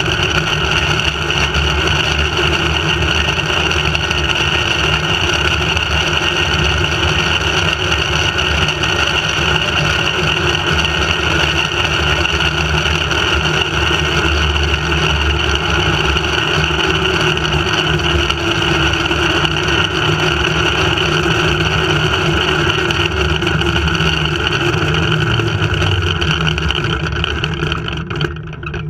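Steady loud drone of a flying-fox zipline trolley running at high speed along its steel cable, its pulleys whirring with wind rushing past. It dips briefly near the end.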